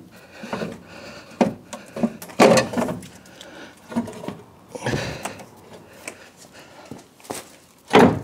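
A heavy-duty 12-volt battery being lowered and shifted into a skid steer's metal battery tray: several irregular knocks and scrapes as it is set in place.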